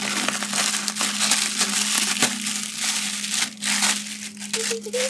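Plastic packaging crinkling and crackling loudly as a poly mailer bag is torn open by hand and the clear plastic bag of yarn inside is handled.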